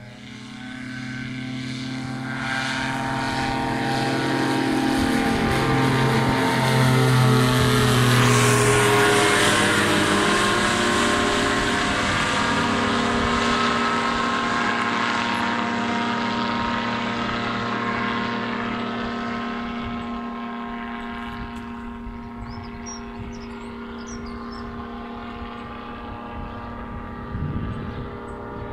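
Kolb Twinstar microlight's engine and propeller droning in a fly-by, growing louder over the first eight seconds, dropping in pitch as it passes, then slowly fading.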